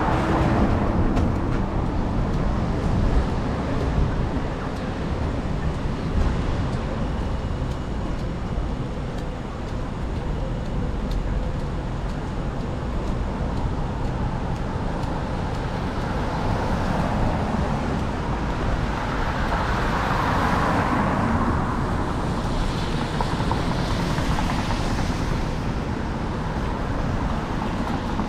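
City street traffic on wet roads: a steady wash of cars going by, with tyre hiss swelling as vehicles pass, loudest about two-thirds of the way through.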